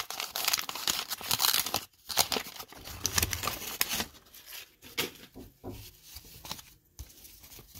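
Paper wrapper of a 1990 Bowman baseball card pack being torn open and crinkled. The crinkling is loudest for the first two seconds, then gives way to quieter crackles and rustling as the cards are pulled out and handled.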